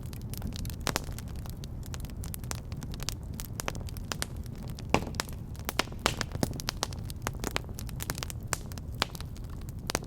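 Wood fire burning in a fireplace: a steady low rumble of the flames with frequent sharp, irregular crackles and pops of the burning wood, one louder pop about halfway through.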